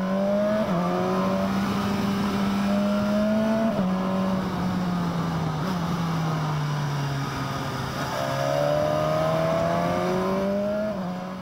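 BMW S1000XR motorcycle's inline-four engine running under way, with wind noise: the revs dip sharply twice early on as it shifts up, fall off slowly through the middle as it eases off, then rise again near the end.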